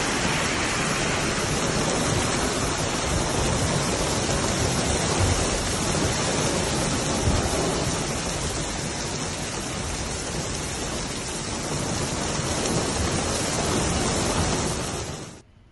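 Heavy rain falling steadily, a dense even hiss that stops suddenly near the end.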